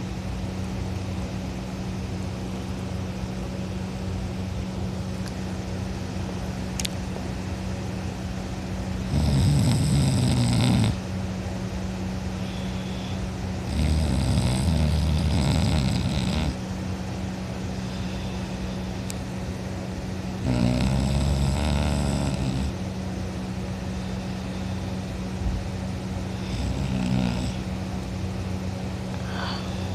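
A person snoring loudly in sleep: three long snores of about two seconds each, spaced five to six seconds apart, then a fainter one near the end, over a steady low hum.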